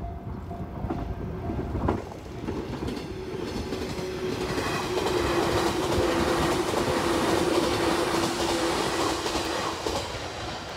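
The JR West 117-series conversion train 'WEST EXPRESS Ginga' passing close by: its wheels clack over rail joints and its traction motors hum a steady whine. The sound builds as the train nears, is loudest as the cars go past about halfway in, and fades near the end.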